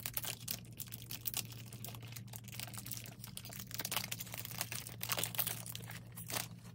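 Plastic wrapping crinkling in irregular crackles as a perfume bottle is worked out of it by hand.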